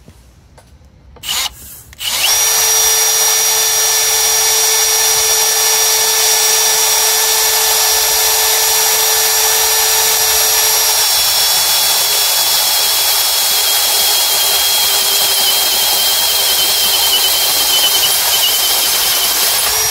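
Milwaukee 2804 FUEL drill, in drilling mode, running a 12.7 mm Diablo step drill bit through 4 mm steel channel. A short blip comes about a second in, then a steady motor whine with cutting noise runs for about 18 seconds and stops right at the end.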